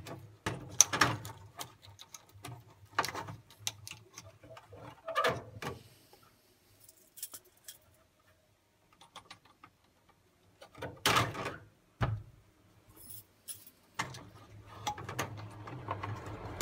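Hands pulling plastic wiring connectors off the circuit board of an Ariston Microgenus combi boiler: scattered, irregular clicks, knocks and scrapes of plastic, with a louder clatter about eleven seconds in.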